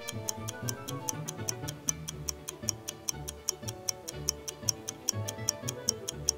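Quiz countdown timer: fast, even clock-style ticking, about four ticks a second, over light background music with a bass line.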